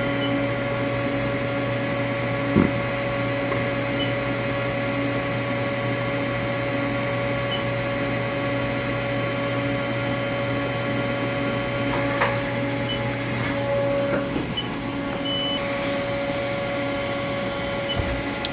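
Haas CNC mill running steadily, with a hum and several steady whining tones, as its spindle turns the tool during an automatic laser tool-length measurement. There is a single knock about two and a half seconds in, and a few short, faint high chirps.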